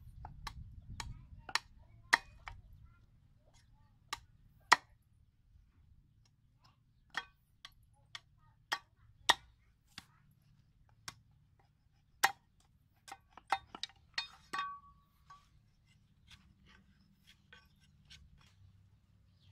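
Irregular sharp knocks and clinks of hand-tool work: a knife chopping at a forked wooden slingshot frame against a log, and a hammer tapping on a metal block. The strokes come about two a second at first, then further apart.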